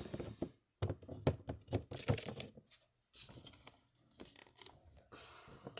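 Small plastic Littlest Pet Shop figures being handled and tapped along a surface: irregular sharp clicks and taps with short bits of rustling.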